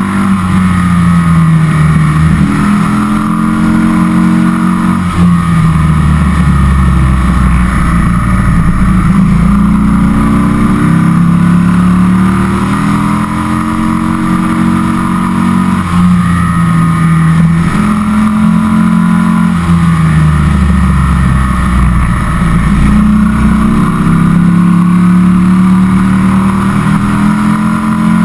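1998 Buell S1 Lightning's 1200 cc Harley-Davidson V-twin under way. The engine note repeatedly climbs in pitch as it pulls and then drops back, several times over.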